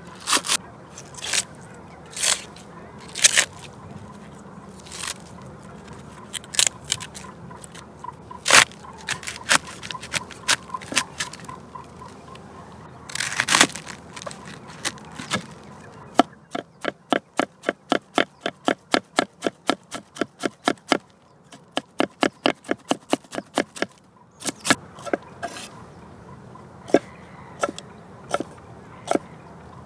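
Knife chopping vegetables: scattered single cuts, then a steady run of about four chops a second for roughly eight seconds, then scattered cuts again.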